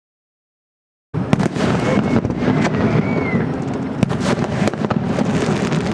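About a second of dead silence, then an aerial fireworks display going off: dense crackling with many sharp pops and bangs over a continuous low rumble.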